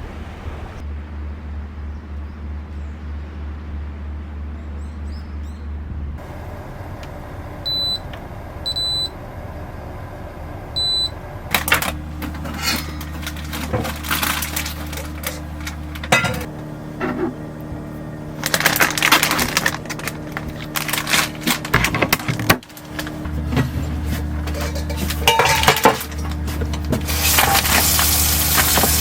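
A steady low hum under three short, high electronic beeps, then a long stretch of irregular clicks, knocks and clatter as objects are handled.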